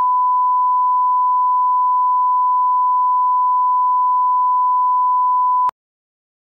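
Steady, single-pitched test-tone beep of the kind played with colour bars, held at one level and cutting off suddenly about five and a half seconds in.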